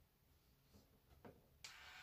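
Near silence with a few faint clicks, then, about one and a half seconds in, a faint steady whir starts: the CHI Spin N Curl's motor turning on and drawing the hair into its chamber.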